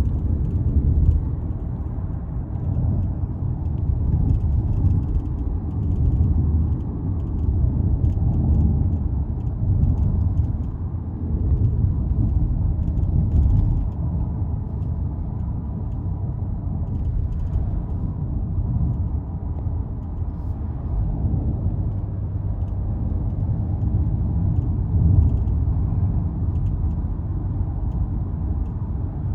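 Cabin noise of a 2025 Toyota Camry XSE on the move: a steady low road-and-drivetrain rumble, with faint, irregular rattling ticks from somewhere in the car's interior.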